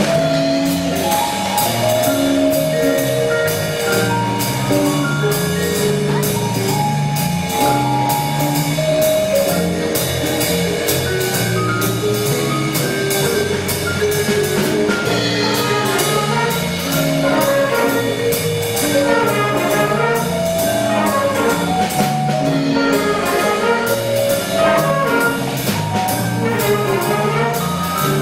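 School band playing a piece on brass instruments, including trumpets and trombones, over a steady drum beat.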